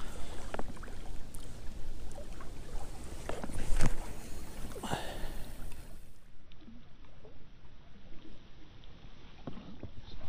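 A 2.7 m picker rod casting a feeder loaded to about 50 grams: a sharp swish of rod and line about four seconds in, over steady wind and water noise.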